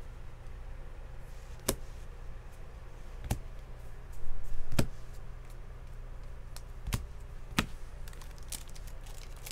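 Baseball trading cards being handled and sorted through a stack: a handful of sharp clicks as cards are flicked and set down, a second or two apart, with a brief patch of rustling near the middle, over a steady low hum.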